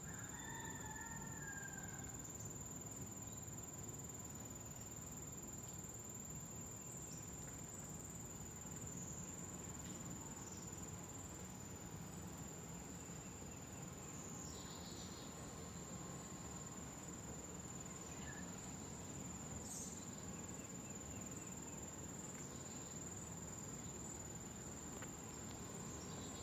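Faint, steady high-pitched trill of insects, unbroken throughout, with a few short bird chirps about a second in.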